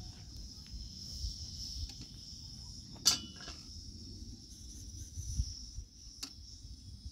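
Steady high-pitched insect chorus, like crickets, over a low rumble, with a sharp knock about three seconds in and a lighter one about six seconds in.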